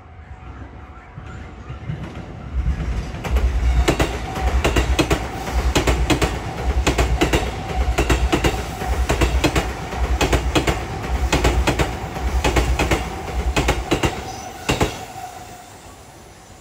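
Sotetsu electric commuter train passing at speed: a clattering rhythm of wheels over rail joints, about one beat a second, over a steady whine. It builds up over a couple of seconds, runs loud for about twelve seconds, and ends with a last clack.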